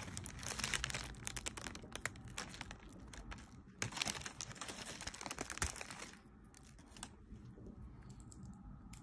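Thin plastic sleeve of saltine crackers crinkling as a hand pulls crackers out of it: rapid crackly rustling that dies down about six seconds in.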